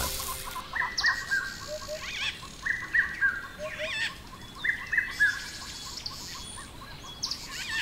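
Tropical forest birds calling: a phrase of short whistled notes repeated about every two seconds, with scattered higher chirps over a fast, steady ticking.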